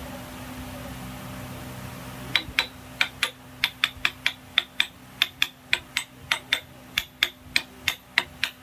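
Hammer tapping repeatedly on a metal engine part, sharp ringing strikes about four a second that begin a couple of seconds in, over a steady low hum.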